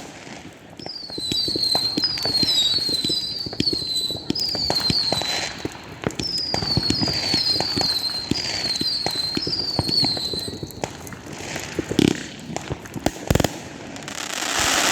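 Fireworks going off: a long run of short, overlapping whistles, each falling in pitch, over steady crackling and popping. A few louder bangs follow near the end.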